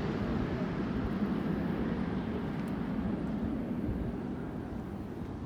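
Jet airliner passing overhead and receding: a steady rushing noise that fades, its high hiss dying away first.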